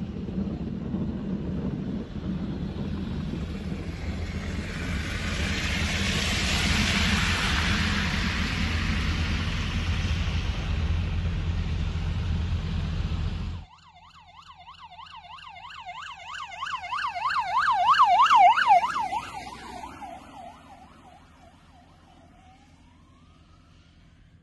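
Steady vehicle rumble and hiss that cuts off abruptly, followed by an emergency vehicle's yelp siren, a rapid up-and-down warble that grows louder, peaks and fades away as it passes.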